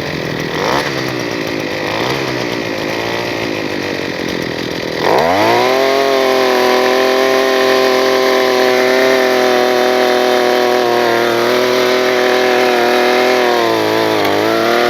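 Gas-powered earth auger engine running rough at low speed, then throttled up sharply about five seconds in and held at a steady high speed while drilling a planting hole, with a brief dip in speed near the end.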